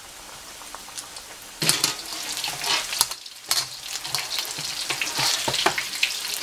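Battered chicken pieces deep-frying in hot oil in a wok: a steady sizzle that turns louder and crackly about a second and a half in. A few knocks come as a wire spider strainer stirs the pieces against the wok.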